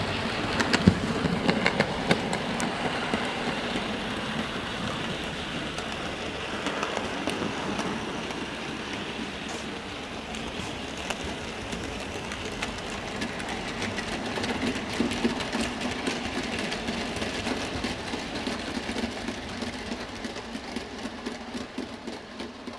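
Model railway trains running on the layout: a steady rumble of wheels and motors with a constant patter of light clicks as the wagons pass over rail joints and pointwork, a few sharper clicks about a second in, fading near the end.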